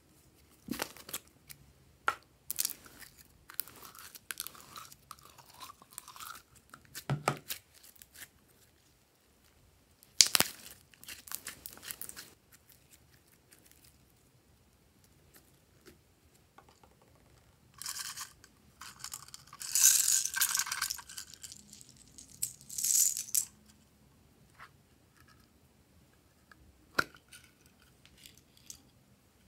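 Slime handling at close range: sticky, crackling squishes and plastic clicks as glitter slime is squeezed and pulled out of a plastic bottle-shaped container. Past the middle comes a longer, louder rattling stretch, small plastic pieces poured onto the slime.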